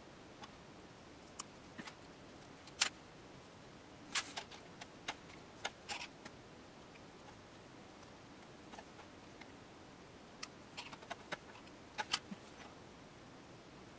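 Watch hand-lifting levers clicking and scraping against each other and the clear plastic sheet over a Seiko 7T32 quartz chronograph's dial as the hands are levered off. Scattered small, sharp clicks, loudest around three seconds in, at four seconds and near the end, over a faint steady hiss.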